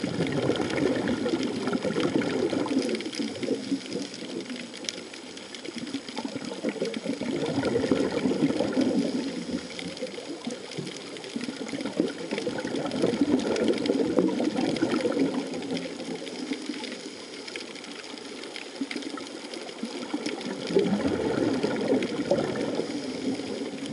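Water noise picked up by an underwater camera: a rushing, sloshing sound that swells and fades about every six to seven seconds, with faint crackling over it.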